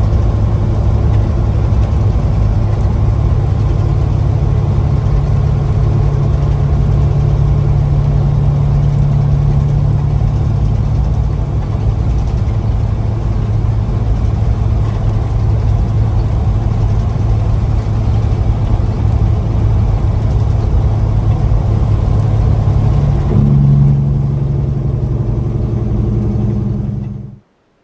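Freshly overhauled diesel engine of a Peterbilt glider semi truck running steadily with a deep drone. The engine note changes about 23 seconds in, and the sound cuts off abruptly near the end.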